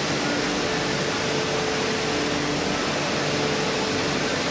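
Steady machinery noise of an electrolytic PCB plating line: an even rush with a constant mid-pitched hum held throughout and a fainter lower hum that drops out and returns.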